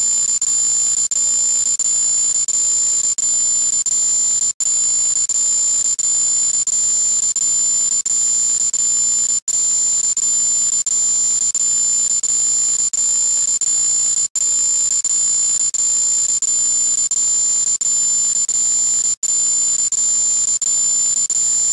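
Loud, shrill, high-pitched alarm-like electronic tone, held steady and looped; it cuts out for an instant about every five seconds.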